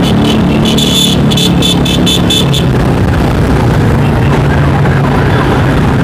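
Busy motorcycle convoy traffic: many small motorbike engines running, with a quick run of repeated beeps over the first couple of seconds.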